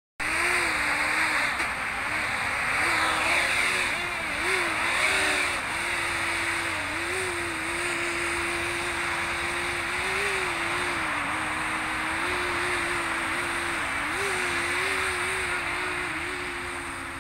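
Quadcopter electric motors and propellers buzzing, their pitch wavering up and down as the throttle changes. The buzz starts abruptly and falls off slightly near the end.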